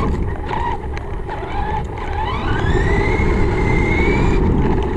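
Remote-control car's electric motor whining over a steady low rumble. Its pitch swoops briefly a few times, then about two seconds in it climbs steadily as the car speeds up, holds high, and cuts off near the end.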